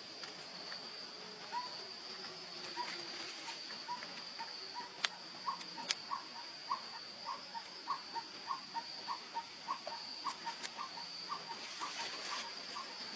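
A steady, high-pitched insect trill, like crickets or cicadas, with a series of short chirps over it. The chirps start sparse and settle into an even run of about three a second, with a couple of sharp clicks in between.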